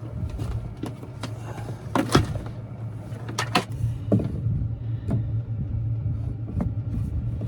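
Scattered knocks and clunks of wooden bed parts being shifted and set in place, over a steady low hum.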